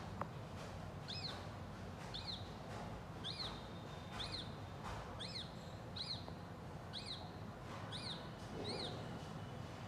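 A bird chirping: a series of short, soft chirps, each rising and falling in pitch, repeated about once a second.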